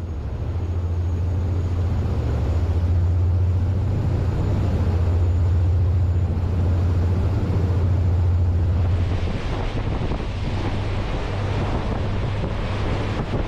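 Pershing GTX116 motor yacht underway at about 20 knots: a steady low drone from its three engines driving water jets, under a rush of wind and water. About nine seconds in, the hiss of wind and spray grows louder.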